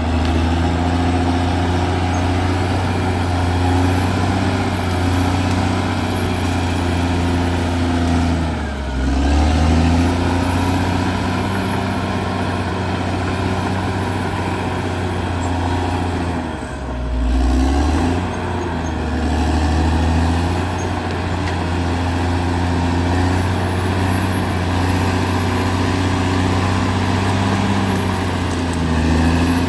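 Caterpillar D6R XL bulldozer's diesel engine running steadily under load. Its revs dip and pick back up twice, about nine and seventeen seconds in. A faint, wavering high whine sits above the engine.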